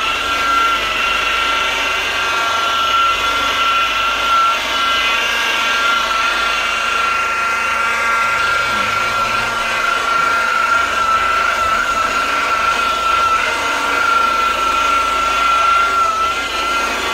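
Electric power tool, of the kind used to polish scratches out of glass, running at a steady speed with a constant high whine.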